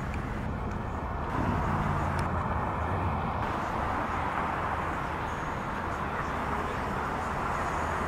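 Steady road-traffic noise from passing cars.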